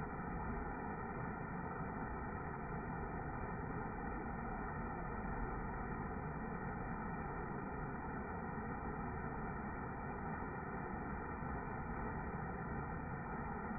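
Steady, muffled rush of falling water from a waterfall, even in level and without high tones.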